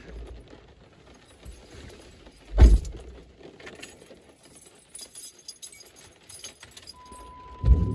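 Keys jangling and clicking inside a car's cabin, with a heavy thump about a third of the way in and another just before the end. A steady beep sounds near the end.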